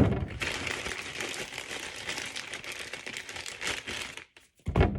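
Plastic marshmallow bag crinkling steadily as marshmallows are taken out by the handful. There is a sharp knock at the start and a low thump near the end.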